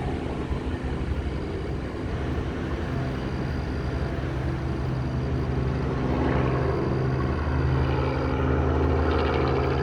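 Small helicopter's engine and rotor running steadily, a low droning hum that grows a little louder about six seconds in.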